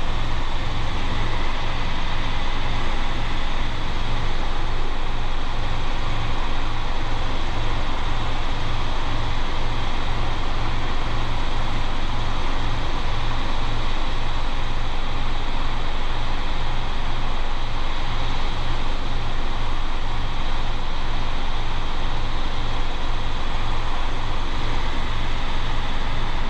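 Robinson R22 helicopter in steady cruise flight, heard from inside the cabin: constant piston-engine and rotor noise with an even low beat.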